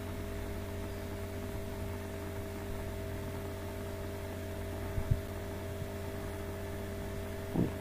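Steady electrical mains hum with a faint hiss on the recording, and a short double click, typical of a computer mouse, about five seconds in.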